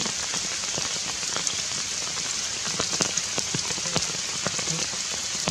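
Heavy rain falling steadily on forest leaves, a dense hiss with scattered sharper drop hits close by.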